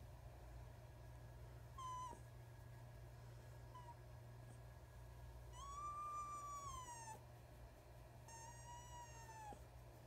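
Fox kit whining during a belly rub, a sign of her pleasure: four high whines, the longest about a second and a half, around six seconds in, rising slightly and then falling away.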